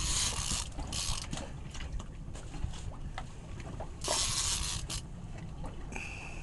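Fishing reel being cranked in while a hooked fish is fought, over a steady low rumble of wind and water with bursts of hiss from water splashing at the boat.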